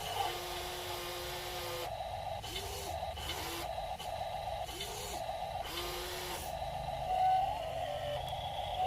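Small electric motors and gearing of a 1:16 scale RC excavator whining as it works, with short sweeps of motor pitch rising and falling, broken by several brief bursts of grinding noise.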